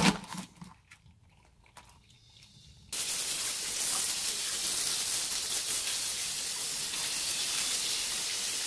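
A knock and a few clicks as the live blue crabs' shells are handled in the sink, then about three seconds in a tap is turned on and water pours steadily from the faucet onto the crabs to rinse them.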